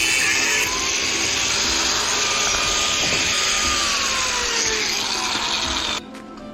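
An electric power tool running on steel, a loud steady hiss with a motor whine that drops in pitch partway through. It cuts off abruptly about six seconds in.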